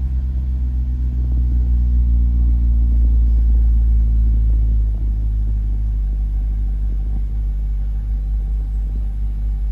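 2023 Chevrolet Corvette Stingray's 6.2-litre LT2 V8 idling in Park, heard from inside the cabin: a steady low idle that drops slightly in level about five seconds in.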